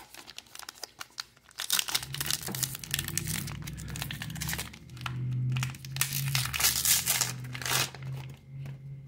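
Plastic wrapper of a baseball card pack being torn open and crumpled. It makes a run of crackling and crinkling that starts about two seconds in and lasts several seconds.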